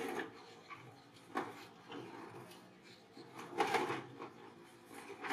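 Several short, irregular scrapes and knocks, the loudest cluster a little past the middle: macaques clambering and grabbing on a corrugated-metal roof and its eaves.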